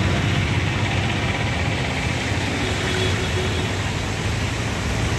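Steady noisy wash of heavy rain and running floodwater on a street, over a constant low rumble.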